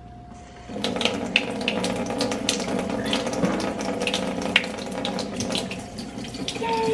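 Kitchen faucet turned on about a second in, then water running steadily from the tap and splashing into the sink.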